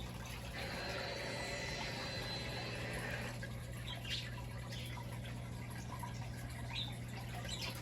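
Aquarium water running with a steady low hum and faint trickling, with a stronger hiss of water during the first few seconds and a few faint ticks or drips later.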